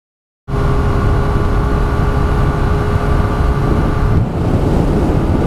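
Yamaha R1 inline-four sport bike riding at steady cruising speed, its engine note mixed with heavy wind rush on the helmet camera's microphone. It cuts in suddenly about half a second in, after silence.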